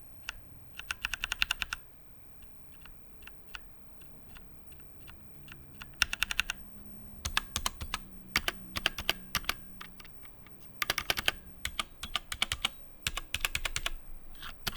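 Typing on a Tecware Phantom mechanical keyboard with Outemu Brown tactile switches in a steel plate: quick bursts of keystrokes broken by short pauses and single key presses.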